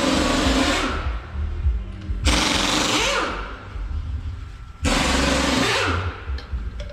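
Pneumatic impact wrench run in three bursts of about a second each, the kind used to loosen or tighten a truck wheel's nuts, over a steady low rumble.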